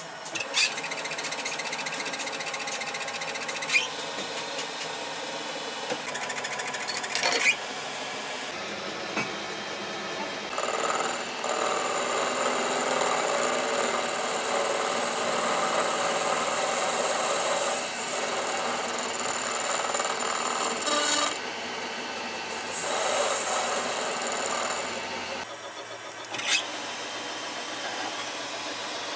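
Metal being machined on a workshop machine: steady running noise with scraping cutting sounds that grow louder and hissier about a third of the way in, and a few sharp metallic knocks.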